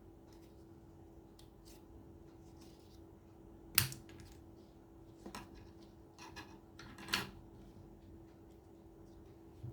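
Folded paper being handled, with a few short taps and rustles (the sharpest about four seconds in, more around five to seven seconds), over a steady low hum.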